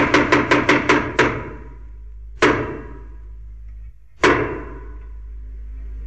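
Sound-design sting for an animated title: a fast run of sharp percussive hits, then two single hits about two seconds apart, each ringing out, over a steady low hum.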